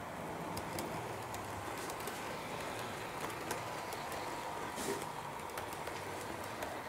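Model train running on a layout: the steady rolling whir of the locomotive's motor and the wheels on the track, with scattered sharp clicks as the wheels pass rail joints and points, one a little louder just before 5 s in.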